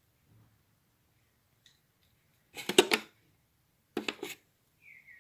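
Plastic makeup case and its trays being handled: a quick clatter of clicks about two and a half seconds in, and a shorter one at about four seconds.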